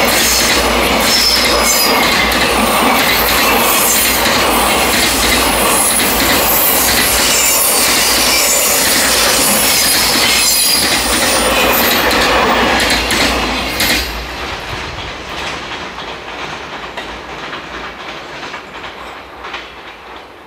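Container wagons of a JR Freight train rolling past: a loud steady rumble with repeated wheel clacks and brief high wheel squeals. The last wagon passes about 14 seconds in, and the sound fades away.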